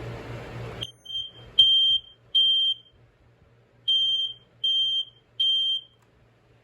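Smoke alarm sounding the temporal-three evacuation pattern: three high-pitched beeps, a pause of about a second, then three more.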